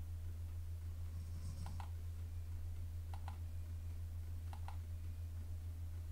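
Steady low hum, with faint sharp clicks coming in pairs about every second and a half.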